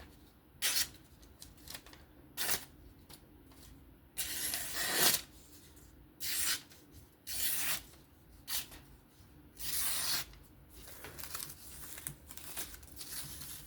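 Maxace Black Mirror folding knife slicing through paper to test its edge: about seven separate cuts, two of them longer strokes around four and ten seconds in.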